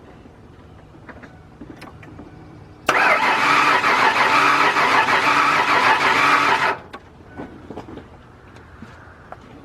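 Starter cranking a 2001 Ford Ranger's V6 engine with the accelerator held to the floor for a compression test, for about four seconds, then cut off without the engine starting. The cylinder under test reaches only about 55 psi where it should be at least 110: low compression from a blown head gasket.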